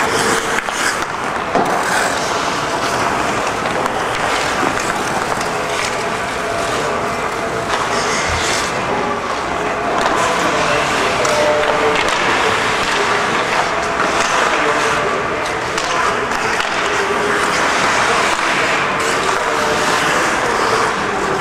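Ice hockey skates scraping and carving across the ice, with a few sharp clacks of sticks and puck. A steady hum runs underneath.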